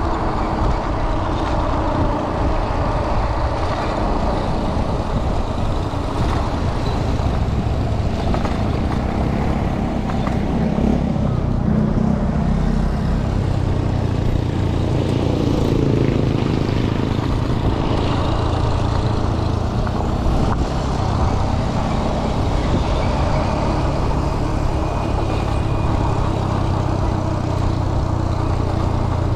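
A motor engine running steadily: a continuous low drone with a steady hum under a noisy wash.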